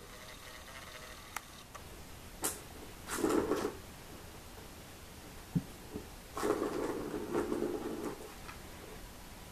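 A ball rolling around the plastic circular track of a cat scratcher toy as a kitten bats it: a short run about three seconds in and a longer one from about six and a half seconds, with a few light knocks in between.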